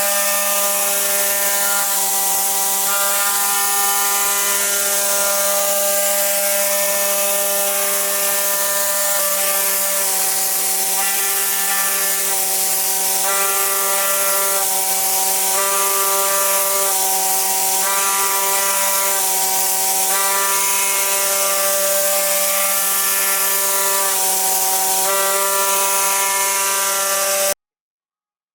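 CNC vibration-knife cutting machine running as it cuts rubber gasket material: a steady hum from the oscillating knife under a set of motor tones that step up and down in pitch every second or so as the cutting head moves. It cuts off abruptly about a second before the end.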